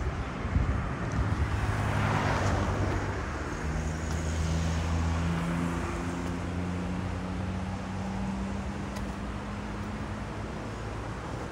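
Road traffic: a car passing close by, its tyre hiss loudest about two seconds in, with a steady engine hum that fades out near the end.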